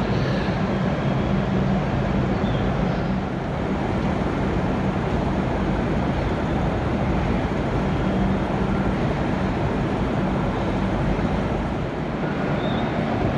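V/Line VLocity diesel railcars running at the platform: a steady drone with a low engine hum that eases about three seconds in and comes back from about seven to eleven seconds.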